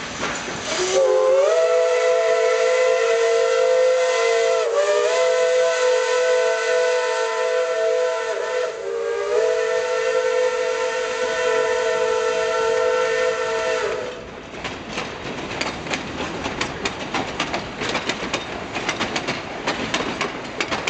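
Steam whistle of East Broad Top 2-8-2 Mikado #15 blowing one long blast of about 13 seconds. Its pitch dips briefly twice before it cuts off sharply. The passenger cars then roll past with a rapid clatter of wheels over the rail joints.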